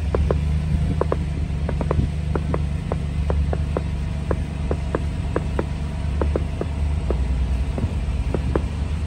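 Steady low rumble of traffic on the bridge, with a run of faint short clicks over it, about three or four a second.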